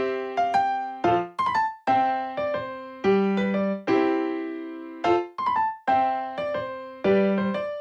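Background music: a bouncy piano or electric-piano tune of short plucked-sounding notes and chords, about two or three a second.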